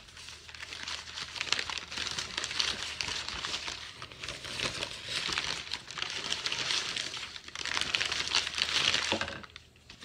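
Newspaper crinkling and rustling as a wrapped bundle is unfolded by hand, a busy run of crackles that stops briefly near the end.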